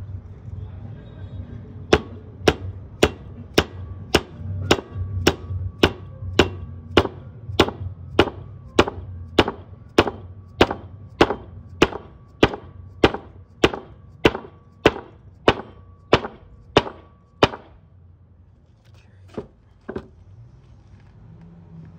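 Mallet blows driving a needle bearing into the steel pivot of a motorcycle swing arm: a steady run of sharp strikes, about two a second, for some fifteen seconds with a faint metallic ring. The blows stop, then two more come near the end.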